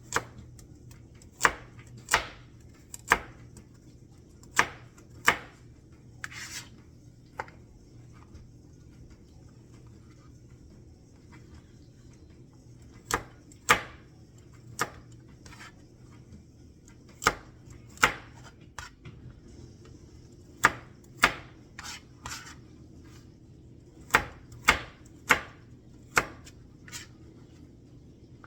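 Knife chopping carrots on a cutting board: single sharp chops, often in pairs or small groups, with a pause of several seconds in the middle.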